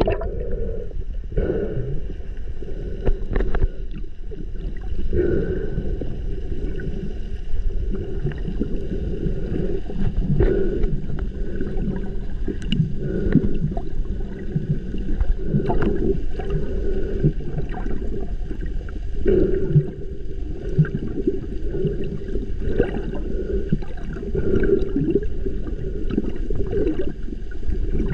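Muffled underwater noise heard through a camera held just below the sea surface: a constant low rumble with irregular gurgling surges of moving water and scattered short clicks.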